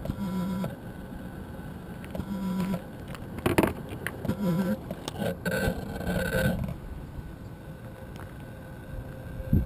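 Short, low electronic tones every couple of seconds from a powered-on DJI Phantom 2 quadcopter resting on gravel, with a few clicks and scrapes of handling about three and a half seconds in and a low rumble starting at the very end.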